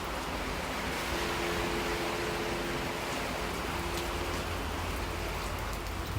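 Steady rain, an even hiss, with a faint steady hum underneath that fades in and out.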